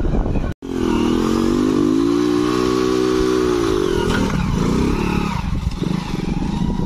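Motorcycle engine revving under way: the pitch rises, holds for a couple of seconds, then drops about four seconds in, over a rough rumble. The sound cuts out for a moment about half a second in.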